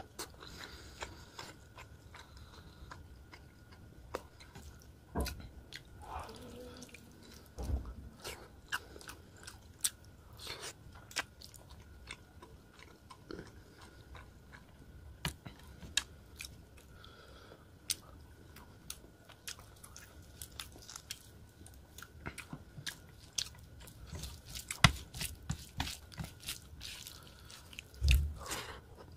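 Close-up chewing of a mouthful of rice and rohu fish curry eaten by hand, with many sharp wet mouth clicks scattered throughout. Near the end a hand pushes another mouthful in, giving a louder low thump.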